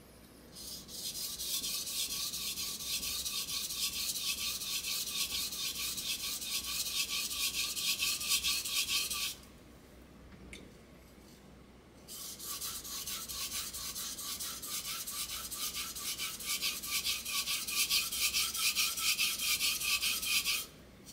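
A steel kitchen knife blade being stroked quickly back and forth on a wet whetstone, giving a rapid, even rasping scrape. It comes in two long runs with a pause of a couple of seconds between them.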